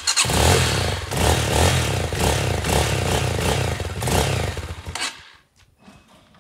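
Motoland 250 Enduro's single-cylinder four-stroke engine running with an uneven, pulsing note for about five seconds, then stopping suddenly. The bike is freshly assembled and its carburettor still needs a little adjusting.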